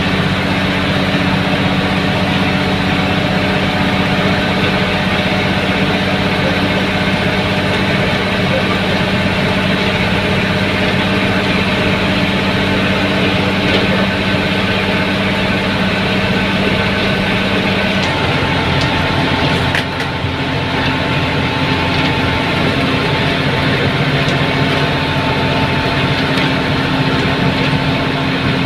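Tata bus diesel engine running at cruising speed, heard from inside the driver's cab: a steady drone over road noise. About eighteen seconds in, the engine note steps down to a lower pitch, and there is a brief dip in loudness shortly after.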